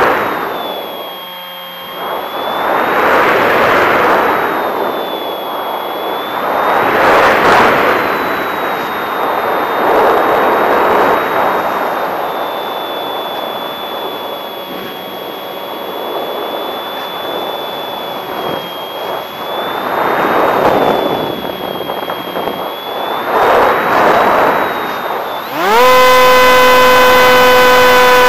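Wind rushing over the wing-mounted camera of a Bixler v1.1 foam RC plane, swelling and fading repeatedly as the plane glides and banks, with a faint thin whine above it. Near the end the electric pusher motor comes on, and a loud, steady whine takes over.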